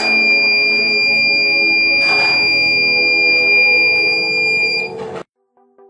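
Small piezo buzzer of a homemade clothespin-switch door alarm sounding one continuous high-pitched tone while the door is open, with a brief rush of noise about two seconds in. The tone cuts off suddenly near the end as the door is shut.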